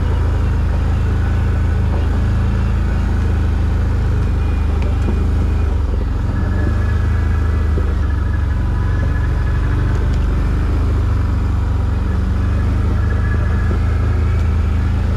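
ATV engine running steadily at low trail speed, a continuous low hum with a fainter steady whine above it.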